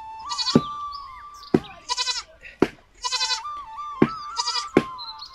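A young goat bleating over and over, about five short quavering bleats roughly a second apart.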